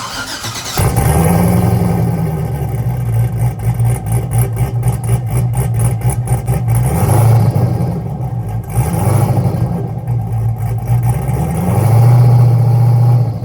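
Cammed V8 in a Camaro catching about a second in and then running loud and choppy, with constant crackling pops from the five-inch fender-exit exhaust fitted with turbo whistles. The revs swell briefly a couple of times.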